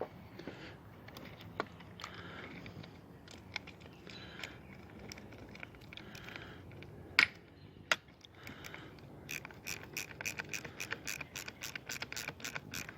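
Hand ratchet wrench clicking as it tightens the nut on an outboard motor's tilt pin, drawing the pin into the transom clamp bracket. The clicks come in short strokes at first, with two sharper metal knocks a little past halfway, then a fast, even run of clicks near the end.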